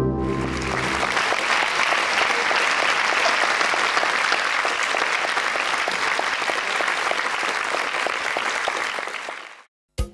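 Audience applauding a stage performance, as a held musical chord dies away in the first second. The clapping cuts off suddenly near the end.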